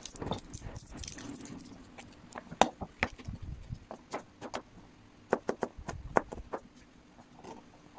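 Chef's knife chopping garlic cloves on a plastic cutting board: a series of sharp, irregular knocks of the blade on the board. They come in two bunches, one about two and a half seconds in and another from about five to six and a half seconds in.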